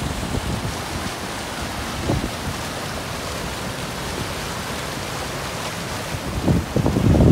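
Steady rushing of a swollen mountain stream in flood, its brown water churning fast along the bank. Wind buffets the microphone with low rumbling gusts near the end.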